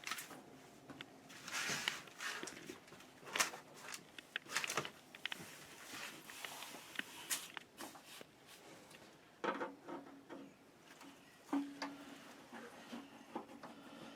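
Irregular clicks, taps and short scrapes of hands and tools working on an electric water heater's panel as it is taken apart.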